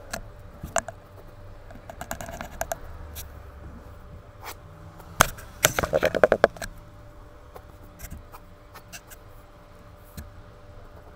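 Ballpoint pen scratching on paper in short strokes, with a quick run of louder strokes about halfway through.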